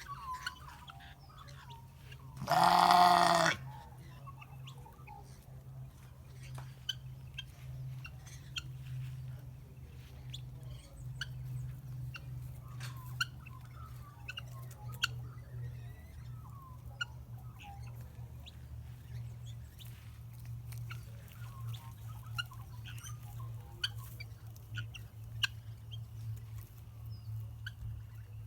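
Parrots eating biscuits: one loud harsh squawk about three seconds in, then scattered small clicks and crunches over a steady low hum.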